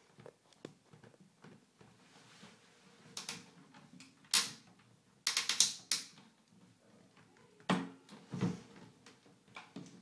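Plastic clicks and knocks from a toy Miele washing machine being handled as its buttons are pressed: one click about four seconds in, a quick run of several clicks a second later, then a few more knocks near the end.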